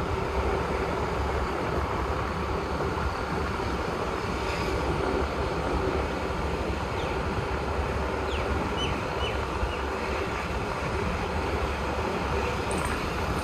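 Steady rushing wind and road noise from a moving Honda Activa scooter.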